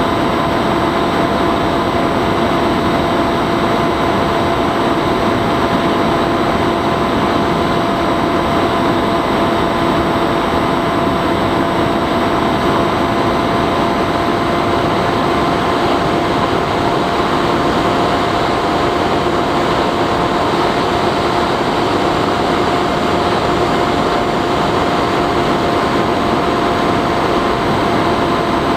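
Bixler 3 RC plane's electric pusher motor and propeller running at a steady throttle in flight, heard through the onboard camera's microphone with wind rushing past: an unchanging whine over a constant hiss.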